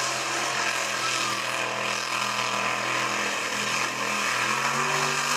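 Off-road mud-bog truck's engine held at high revs as the truck plows through a water-filled mud pit, with a steady hiss of spray over the engine.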